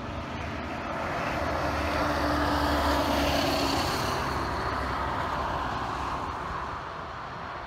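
Aer Lingus Regional ATR 72-600's twin Pratt & Whitney PW127 turboprop engines running as the aircraft rolls past on the ground. The sound swells to its loudest about three seconds in, then fades.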